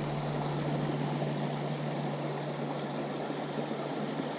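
Steady rushing of flowing water, with a low steady hum underneath.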